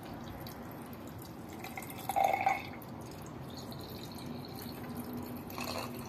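Red grape juice pouring in a thin stream into a tall glass over ice and fruit, with a brief louder gurgle about two seconds in.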